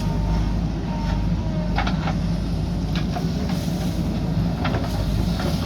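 Diesel engine of a JCB backhoe loader running steadily under work. A few sharp metallic knocks sound over it, about two, three and nearly five seconds in.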